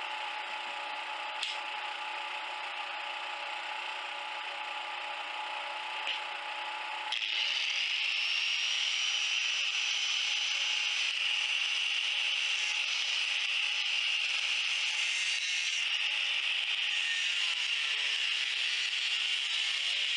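Electric angle grinder working steel flat bar. A steady hum with a couple of light clicks runs for about seven seconds, then the disc bites into the metal and a louder, steady grinding whine takes over.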